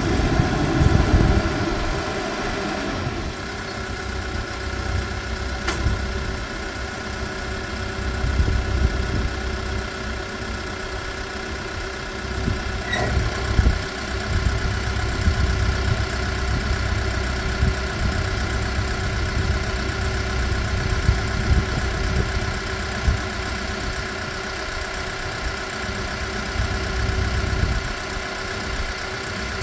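Case 580N backhoe loader's diesel engine idling steadily.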